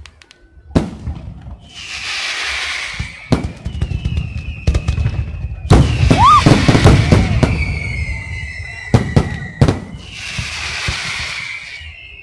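Fireworks display: sharp bangs of bursting shells, two spells of hissing crackle, and long whistles from rising shells. The bangs come thickest and loudest about six seconds in.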